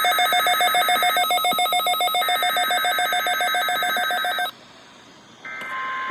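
NOAA weather radio sounding an alert. The warbling data bursts of an EAS/SAME header (two bursts with a second's pause between) play under a rapid, ringing electronic beep of about nine pulses a second. Both stop about four and a half seconds in. After a short lull another header burst begins with a steady tone.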